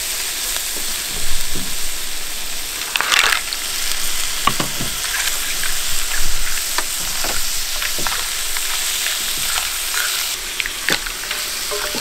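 Food frying and sizzling in a pan: a steady hiss with scattered clicks and knocks, likely a utensil against the pan.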